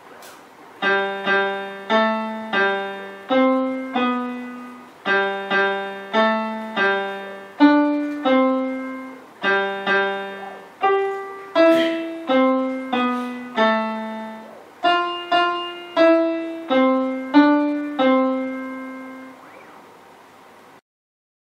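Portable electronic keyboard with a piano voice, played one key at a time by a desktop robot arm: a simple single-line melody of about two dozen evenly paced notes, each struck and fading, with a short pause partway through.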